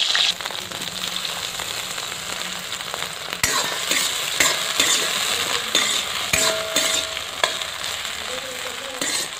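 Sliced brinjal (eggplant) sizzling in hot oil in an iron kadai. From about three seconds in, a metal spoon stirs the pieces, knocking and scraping against the pan a few times.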